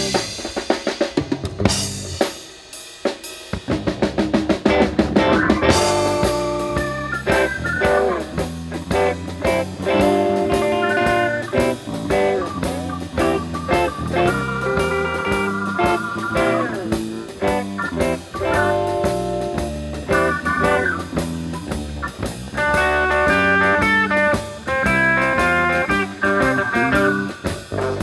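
Live blues-rock band playing an instrumental passage. A drum kit plays alone at first, then a quick run of drum hits builds up and the full band comes in about six seconds in, with bass, drums and electric guitar lines.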